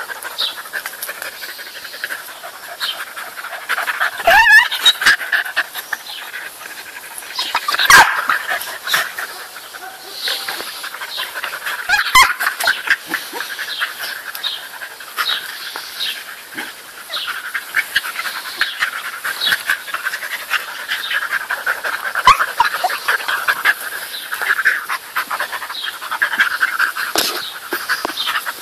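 Dogs panting hard while playing rough, close up, with a few sudden louder sharp sounds about four and a half, eight and twelve seconds in.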